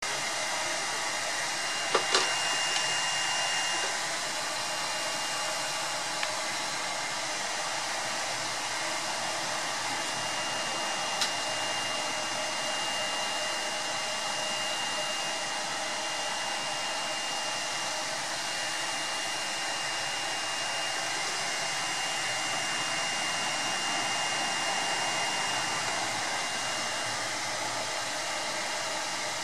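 Steady whoosh of the Ultimaker 2 3D printer's cooling fans running while it preheats, with a thin high whine that comes and goes. Light clicks about two seconds in and again near eleven seconds.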